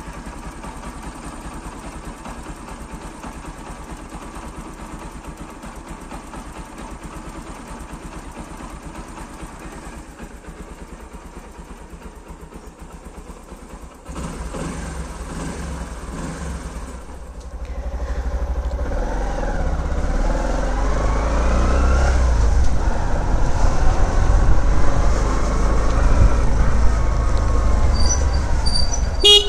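Bajaj CT 110 BS6's 115cc single-cylinder engine idling steadily for about fourteen seconds, a morning cold start of the kind the owner shows for its raised idle. It then grows louder as the bike is ridden off, the engine note rising and falling with the throttle and gear changes, with wind rumble on the microphone. A sharp click and short high beeps come near the end.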